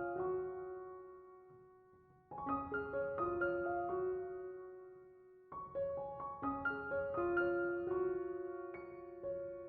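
Solo piano background music: gentle phrases of single notes, each phrase dying away before the next begins, twice in this stretch.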